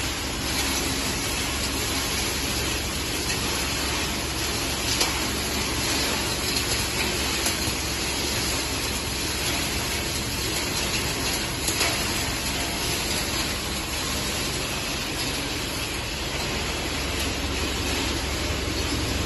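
Waste circuit board recycling machine running, separating ground boards into metal powder and resin fibre: a steady, even rushing noise with a few sharp ticks.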